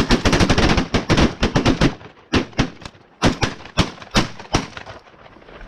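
A volley of shotgun fire from a group of goose hunters shooting at once. The shots come in a rapid, overlapping barrage for about two seconds, then taper to about eight scattered single shots that stop a little before the end.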